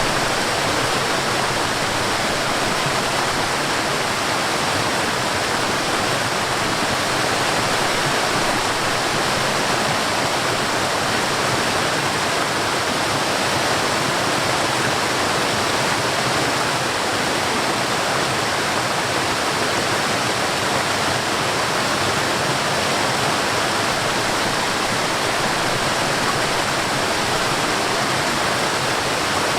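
Steady rush of water cascading down a mountain stream, an even hiss that does not change.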